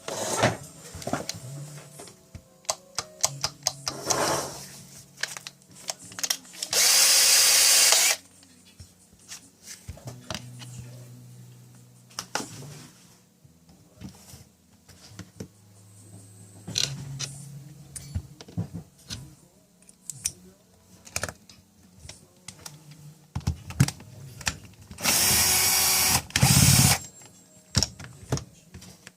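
Cordless drill-driver running in two short bursts, about a second long and then about two seconds long, with scattered clicks and knocks of handling in between.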